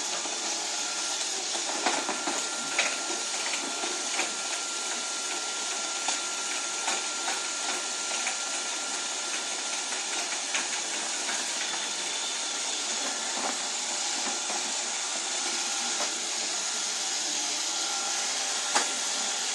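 Robot vacuum cleaner running with a steady hiss, with scattered light knocks and clicks.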